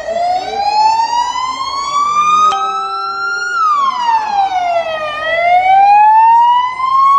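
Ambulance siren on a slow wail, rising and falling twice. A short horn blast of about a second cuts in about two and a half seconds in.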